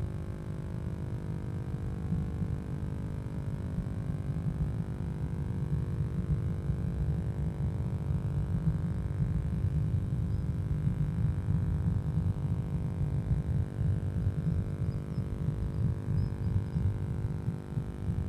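Low, uneven rumble with a steady electrical hum from a nest-box camera's microphone; no bird sounds stand out.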